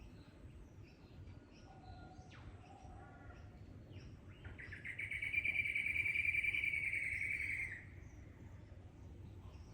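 A bird gives a loud, rapid trill lasting about three seconds, starting about halfway through. A few faint chirps come before it, over a low steady background of natural ambience.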